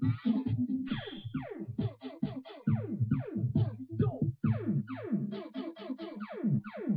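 Electronic keyboard playing a synthesized sound effect: quick falling pitch sweeps, about three a second, over a steady low drone.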